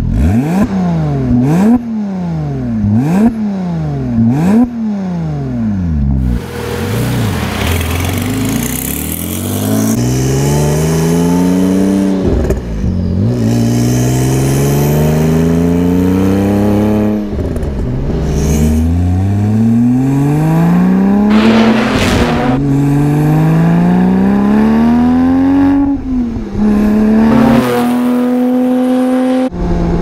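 Tuned 2008 Porsche 911 GT2's twin-turbo flat-six with a custom exhaust: three quick revs, then hard acceleration through several gears, the pitch climbing in each gear and dropping sharply at each shift.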